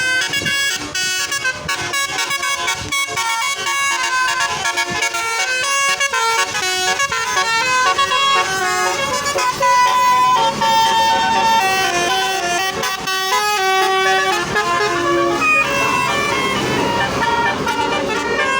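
Telolet musical bus horns playing multi-note melodies, several horn tones overlapping. Quick stuttering toots come first; from about eight seconds in, longer notes step up and down in pitch.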